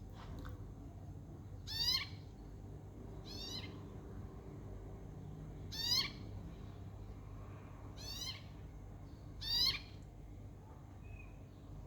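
Birds calling back and forth: five short rising calls about two seconds apart, alternating louder and softer, as if two birds answering each other.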